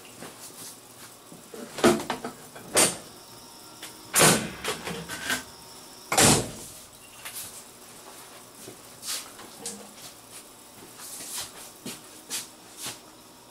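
Irregular knocks and rubbing sounds with no speech, the loudest few in the first six seconds and fainter ones scattered after.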